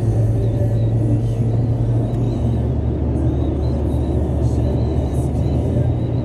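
Steady low road and engine rumble heard inside a car cruising at motorway speed.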